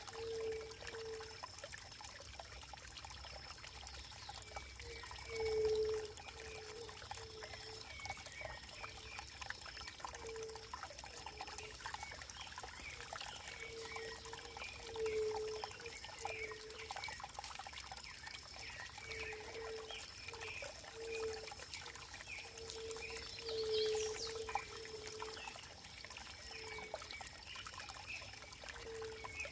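Running water pouring and trickling steadily, with short low notes popping up about once a second, a few of them louder, and a faint steady high tone above.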